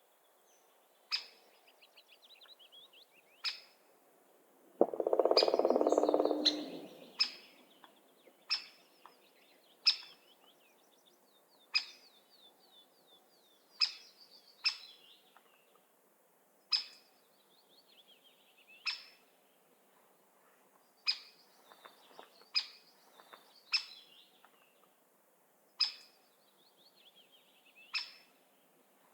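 Wild birds singing: sharp, high call notes repeating every second or two over softer trilling song. About five seconds in, a louder, lower sound lasts about two seconds.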